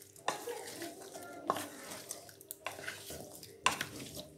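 A spatula stirring wet raw chicken and tomato slices in a stainless-steel kadai: soft wet mixing noise with several sharp knocks of the spatula against the pan.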